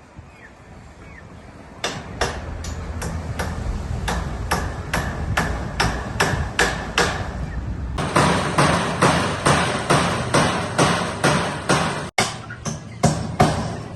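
Hammer driving nails: a steady run of quick blows, about three a second, starting about two seconds in and growing louder about eight seconds in.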